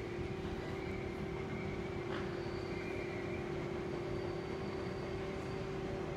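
Steady hum of an electric train: one constant mid-pitched tone over a low, even rumble.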